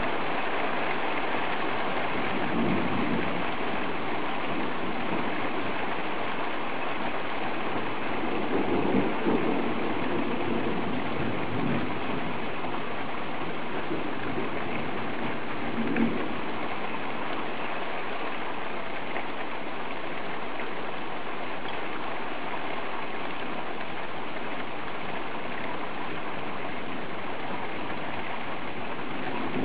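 Steady downpour of rain hissing on the street and a parked car, with a few short low rumbles in the first half.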